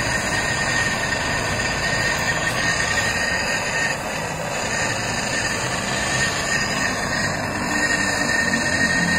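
High-pressure LPG fire-gun torch burning with a steady rushing noise and a thin steady whistle, its flame held on a metal joint to bring it to red heat for brazing.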